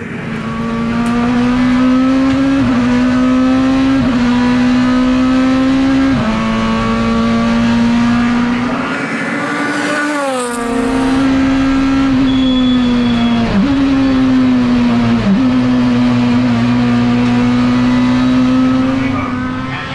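Race car engine running hard at high revs, holding a near-steady pitch with brief sharp dips four times and one smooth fall in pitch about halfway through.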